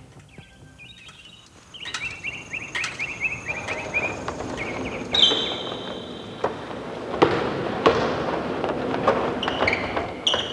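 Basketball court ambience: balls bouncing in scattered sharp knocks, with high chirping squeaks, one a long pulsing trill, heard over a steady background.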